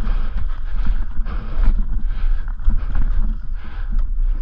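Electric mountain bike rolling over slickrock and loose stones: irregular knocks, clicks and rattles from the tyres and bike, over a steady low wind rumble on the microphone.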